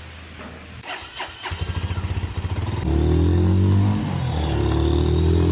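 A few clicks, then a motorcycle's electric starter cranks briefly before the engine catches about three seconds in and runs, its revs dipping and rising.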